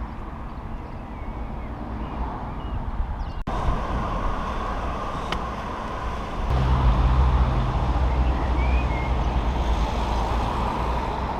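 Road traffic noise: a steady roar of passing vehicles, with a closer engine rumbling louder from about halfway through for a few seconds. Faint bird chirps show over it.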